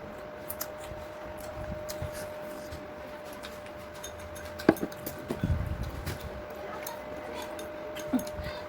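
Eating sounds: scattered light clicks of utensils against a dish, with one sharp clink a little before halfway and some low thuds just after. A steady high hum runs underneath.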